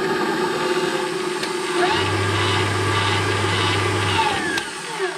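KitchenAid Professional 6 stand mixer's motor running with a steady whirr, a low hum joining in about two seconds in and fading out about four seconds in, then the sound dropping off near the end. It sounds kind of noisy, which the owner takes as a sign the motor may be going out.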